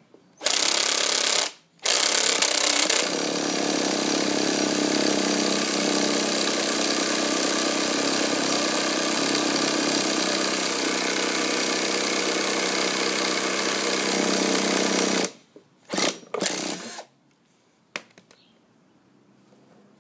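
The small nitro engine of a 1/5-scale RC motorbike is spun over by a motorised starter for about fifteen seconds without catching. There is a short break just after the start, then two brief bursts of cranking and a click near the end: the engine won't fire.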